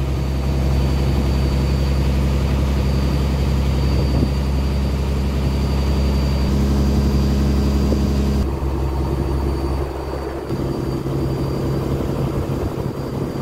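Inboard engine of a small wooden motorboat running steadily under way, heard from on board as a constant low hum. The note changes abruptly twice, about eight and ten seconds in.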